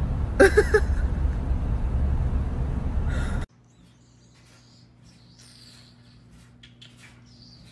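Loud, steady low rumbling background noise with a brief vocal sound about half a second in, which cuts off abruptly about three and a half seconds in. A quiet room follows, with a faint steady electrical hum and a few faint, short high chirps.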